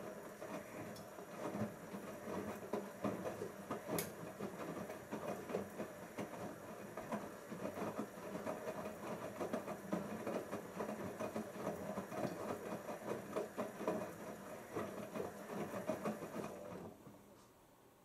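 Siemens iQ washing machine drum turning during the main wash: laundry and water tumbling and sloshing with a steady motor hum. It stops about a second before the end, for the pause between drum turns.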